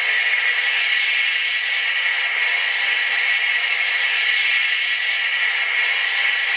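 GE AC4400CW diesel sound played by a ZIMO MX645 sound decoder through a model locomotive's 28 mm speaker, the engine running steadily. It sounds thin, with no deep bass.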